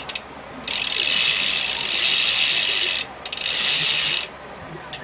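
BMX rear hub freewheeling as the back wheel is spun, its pawls clicking in a fast, pretty loud buzz. There are a few short clicks at first, then two long runs: one of about two seconds and a shorter one of about a second.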